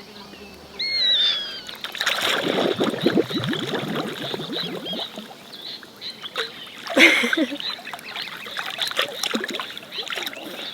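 Water splashing and sloshing as people wade into a lake, busiest between about two and five seconds in, with a louder splash about seven seconds in.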